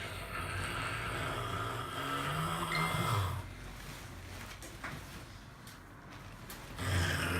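A person snoring: one long, low snore over the first three seconds or so, a quieter gap, then another snore starting near the end.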